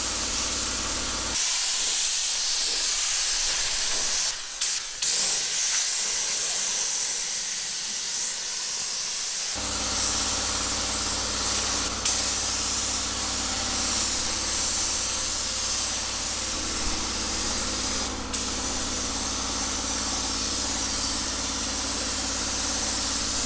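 Compressed-air spray gun hissing steadily as it sprays a coat of sealer primer onto a car body. A low steady hum sits underneath, dropping out for several seconds early on and returning about ten seconds in. There are a few brief clicks around the fifth second.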